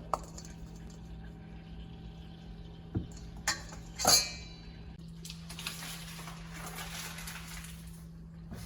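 Kitchenware clinking: a few knocks and one ringing clink about four seconds in, then a few seconds of soft hissing noise, over a steady low hum.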